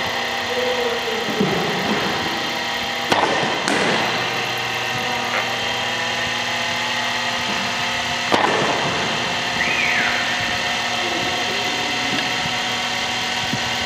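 A steady motor hum, with a sharp knock about three seconds in and another about eight seconds in.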